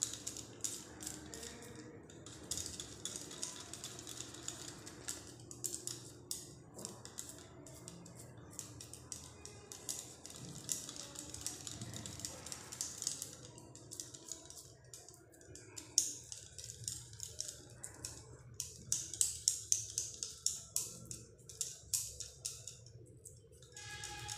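Rapid light clicking and patting from hands pressing and closing a potato-stuffed ball of dough over a plate of dry flour, with the glass bangles on the wrists clinking as the hands move. The clicks come in quick runs, busiest in the last third.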